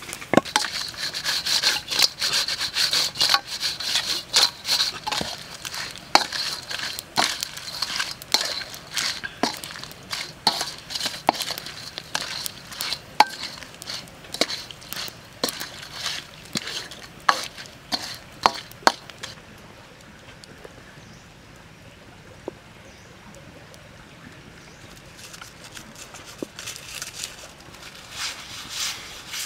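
Prawns in chili sauce sizzling in a metal wok while a wooden spoon stirs them, knocking on the pan in sharp, uneven clacks. The stirring stops about two-thirds of the way through, leaving only a faint hiss.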